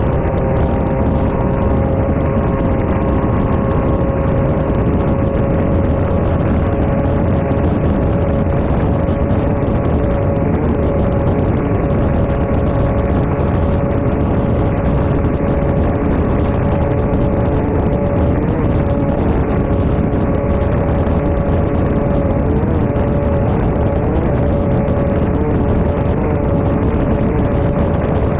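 Off-road race car's engine running hard at steady high revs, heard from inside the car over a dense, constant rumble of noise. The engine pitch holds nearly level and wavers briefly a few times past the middle.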